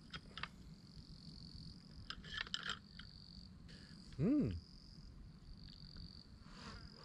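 Steady high-pitched trill of insects in the grass, with a few light clicks of metal tongs and a spoon against the pan and bowl. About four seconds in, a short low hum rises and falls once.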